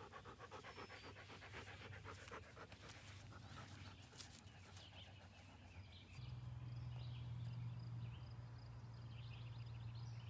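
A dog panting quickly and evenly, hot after chasing a ball. After about six seconds the panting gives way to a steady low hum with birds chirping.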